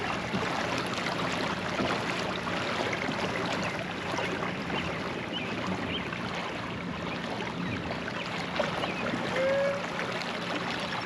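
Steady splashing and churning of water from the Old Town Sportsman PDL 106 kayak's pedal-driven propeller and its wake as the kayak is pedalled in tight circles.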